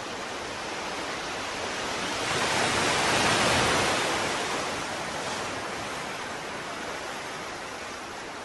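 Ocean surf: a steady rush of water that swells to a peak about three seconds in and then slowly ebbs away.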